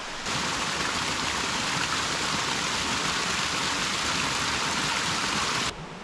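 Rushing water of a rocky mountain stream fed by a cliffside cascade: a steady, even hiss that starts suddenly just after the beginning and cuts off suddenly near the end.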